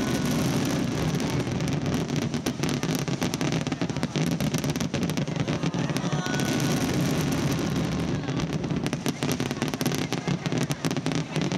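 Fireworks display: a dense, unbroken barrage of bangs and crackling from many shells and crackling stars going off in quick succession.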